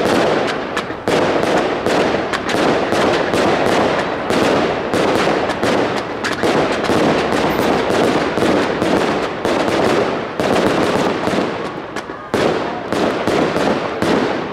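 Consumer fireworks going off: shells bursting amid a dense, rapid crackle of many small pops and bangs, with a short dip about 12 seconds in.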